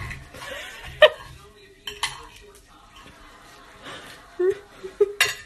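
A beagle gnawing on the edge of a hard clear object, its teeth clicking and scraping, with sharp clinks about one and two seconds in.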